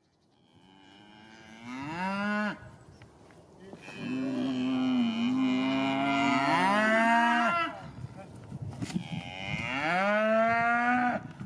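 Galloway cattle mooing three times: a short call about a second in, a long drawn-out moo in the middle, and another near the end.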